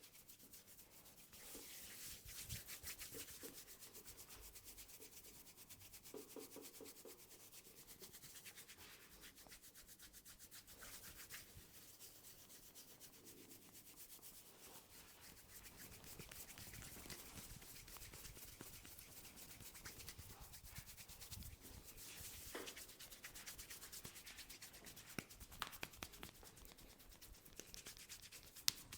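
Faint, continuous scratchy rustle of hands rubbing and kneading hair and scalp during a head massage, with a few sharp clicks near the end.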